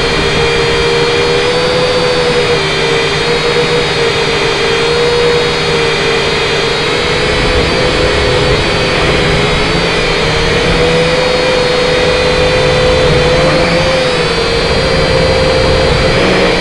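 M:TECH Sky Drone Plus quadcopter's motors and propellers whining steadily, the pitch wavering slightly up and down as the throttle shifts in flight.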